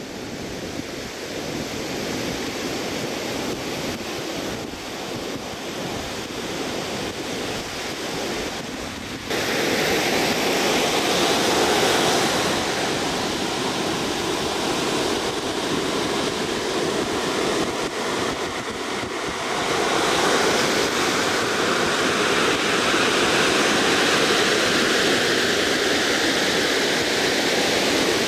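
Ocean surf washing onto the beach, with wind on the microphone. About nine seconds in the surf noise jumps abruptly louder and stays that way.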